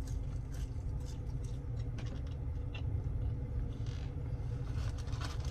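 A person chewing French fries, with faint small mouth clicks over a steady low hum.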